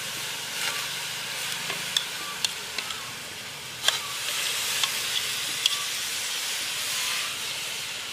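Chopped pork sizzling as it is spooned into a hot steel frying pan, over a steady frying hiss. A metal spoon clinks sharply against the ceramic bowl and pan about seven times through the first six seconds.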